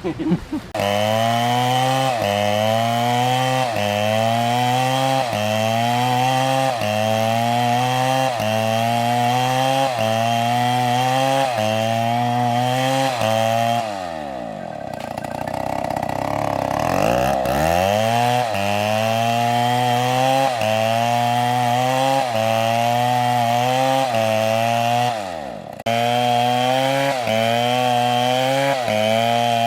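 Large two-stroke chainsaw (a Stihl MS720) running at high revs while cutting wood, its pitch wavering in an even cycle about once a second. About halfway through the engine drops to low revs for a few seconds and then revs back up; it dips briefly once more near the end.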